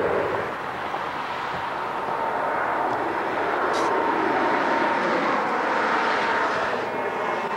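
Jet engines of a Learjet climbing out overhead after takeoff: a steady rushing roar with a thin whine, growing louder after about a second.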